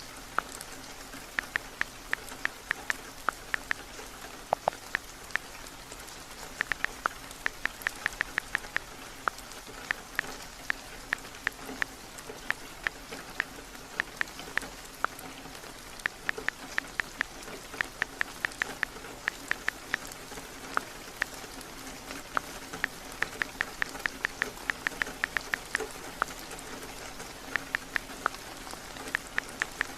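Steady rain falling on a roof, with irregular bursts of quick, sharp taps from typing on a phone keyboard.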